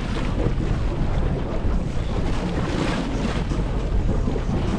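Wind buffeting the microphone over the steady rush of sea water around a moving sportfishing boat.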